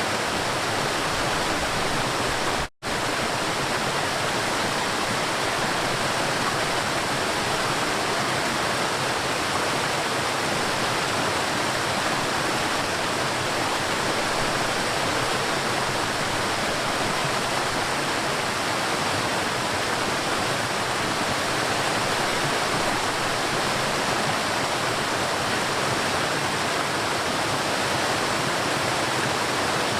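River water flowing steadily, a constant rushing noise. It cuts out for a split second about three seconds in.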